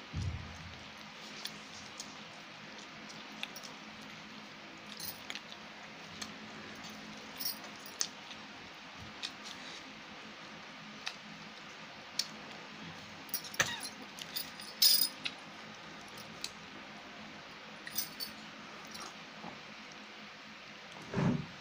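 Fingers mixing rice and curry by hand on a steel plate, giving scattered small clicks and clinks of nails and rings against the metal, over a steady hiss. The clinks come most thickly about two-thirds of the way in, and a low thud comes near the end.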